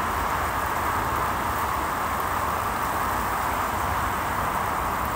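Steady outdoor background noise: an even rushing hiss over a low rumble, from wind on the microphone and distant motorway traffic.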